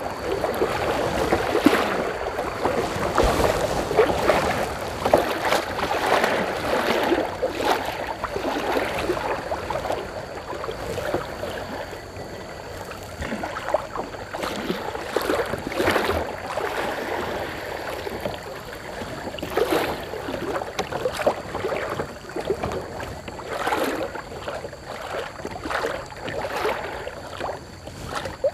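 River water rushing around a kayak as it runs a narrow, fast stretch of current, with irregular splashes from paddle strokes every second or two.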